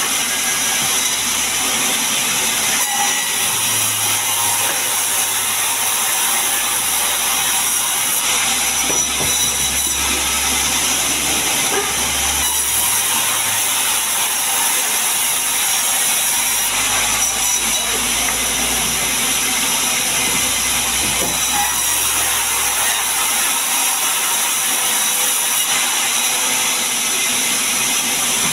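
Sawmill band saw ripping lengthwise through a mahogany log: a loud, steady hissing rush of the blade in the wood over a low motor hum that rises and falls with the load and drops away near the end.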